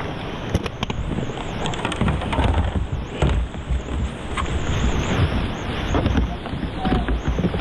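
Fast, high glacial river rushing, with wind buffeting the microphone in heavy low rumbles. A few light clicks come in the first two seconds.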